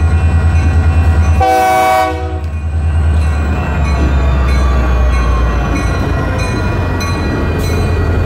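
Diesel-electric freight locomotives (a Union Pacific GP40-2 leading a GP15-1) rumble through a grade crossing. The lead locomotive's air horn sounds one blast about one and a half seconds in. Wheels clack over the crossing in the second half, with the crossing's electronic warning bells ringing throughout.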